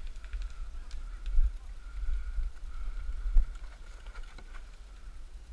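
Low rumble of wind and movement on a wearable action camera's microphone, with a faint steady high hum and two sharp knocks about two seconds apart.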